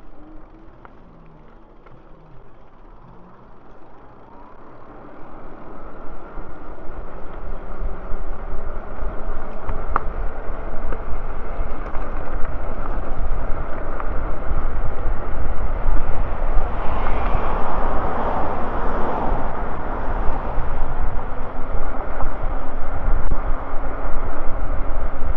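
Wind rushing over the microphone and road rumble while riding an e-bike, fairly quiet at first and growing steadily louder over the first several seconds as the bike gathers speed. A brief swell of louder rushing noise comes about two-thirds of the way through.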